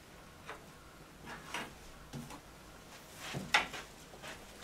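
A handful of short knocks and scuffs from a person moving about in front of a chalkboard: footsteps and items handled at the board ledge. The loudest knock comes about three and a half seconds in.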